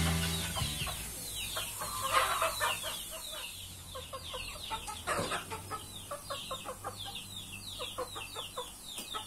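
Thai game fowl clucking in short, repeated notes, over a steady run of high, thin chirps that fall in pitch. There is a brief louder noise about five seconds in. Music fades out in the first second.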